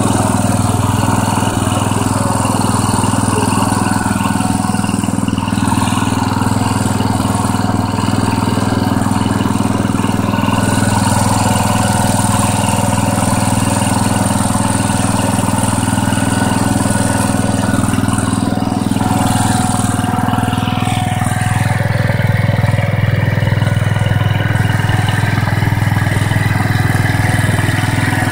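Massey Ferguson 14 garden tractor's single-cylinder Kohler engine running steadily, freshly rebuilt. About twenty seconds in a whine rises briefly and the engine note shifts.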